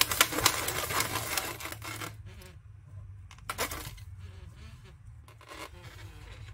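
Latex 260 modelling balloons rubbing and squeaking against each other and against the hands as they are twisted and locked, busiest in the first two seconds, then fainter handling.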